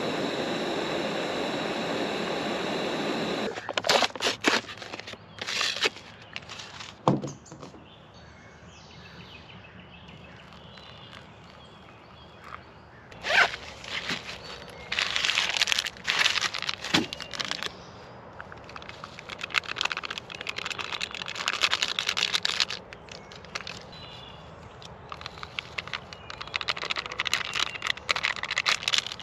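Canister camp stove burning with a steady hiss under a pot, stopping suddenly about three and a half seconds in. Then irregular crinkling, rustling and a few sharp clicks of plastic food packaging being handled, opened and torn.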